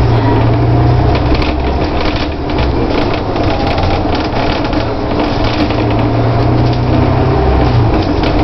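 Double-decker bus engine running steadily on the move, heard inside the top deck, with a constant rapid clatter of rattling body panels and fittings over it.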